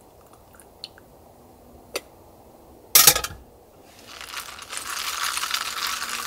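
An aluminium moka pot set down on a portable gas stove with a sharp metal clank about three seconds in. Then ice cubes clinking and crackling in a plastic cup of freshly poured iced coffee held in the hand, a dense rattle for the last two seconds.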